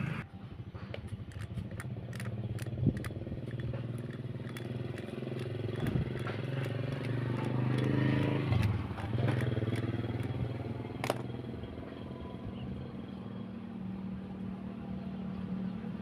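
A motorcycle engine running steadily, with a brief rise in revs about eight seconds in. Scattered sharp clicks and taps sound over it.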